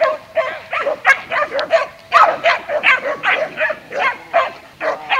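Dogs barking in rapid, repeated barks, about four a second.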